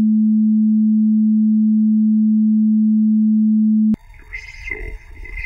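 A loud, steady, low-pitched electronic sine tone that cuts off suddenly about four seconds in, giving way to a jumble of distorted, glitchy noise.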